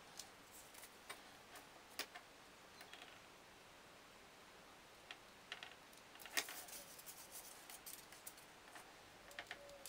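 Near silence with faint, scattered clicks and taps of small parts being handled on a workbench, a few slightly louder ones about six seconds in.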